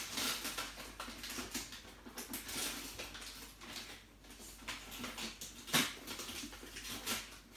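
Paper gift bag and tissue paper rustling and crinkling unevenly as a small child's hands dig inside, with one sharper crackle near six seconds in.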